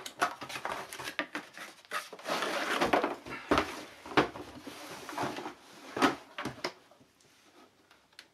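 Unboxing handling noise: a cardboard carton's flaps scraping and rustling, and a hard plastic carrying case being pulled out and knocking against cardboard, with a couple of dull thumps about three seconds in. It dies down near the end.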